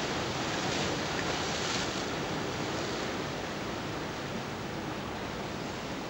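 Steady wash of sea waves and surf, mixed with wind noise on the microphone, a little stronger during the first two seconds.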